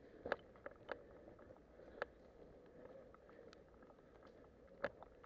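Near silence with faint footsteps and gear movement of a player walking, broken by a few sharp clicks and taps, the loudest about two seconds in and just before the end.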